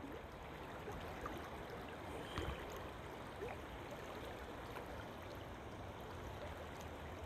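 Faint, steady rush of river water flowing, with a light knock about two and a half seconds in.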